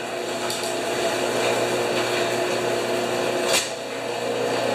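Electric garage door opener running steadily as it lowers the overhead garage door, with one sharp clack about three and a half seconds in.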